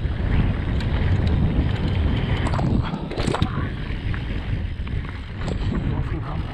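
Wind buffeting the action-camera microphone on a fast mountain-bike descent, a steady low rumble, with the Radon Swoop enduro bike rattling and knocking over rough trail: several sharp knocks, the biggest about halfway through.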